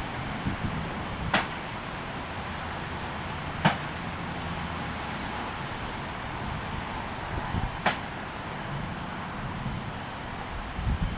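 Storm wind and rain hissing steadily on a security-camera microphone, with low gusts buffeting it at the start and near the end. Three sharp knocks land about a second, three and a half seconds and eight seconds in.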